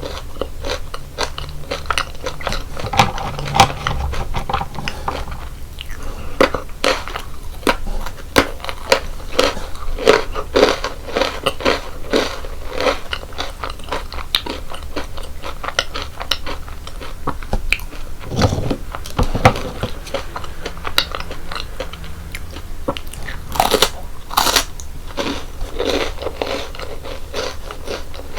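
Close-miked biting and chewing of crunchy chocolate biscuit snacks: a steady run of crisp crunches, with a couple of louder bites near the end.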